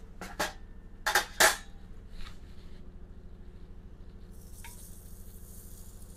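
Metal and utensil clinks as cooked waffles are lifted out of an electric waffle maker and set on a metal cookie sheet, the loudest two about a second and a half in. A steady high hiss starts about four seconds in, over a low appliance hum.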